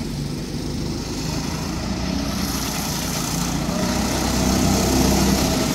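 Predator 6.5 hp single-cylinder four-stroke engine on a drift trike running steadily, growing louder as the trike approaches.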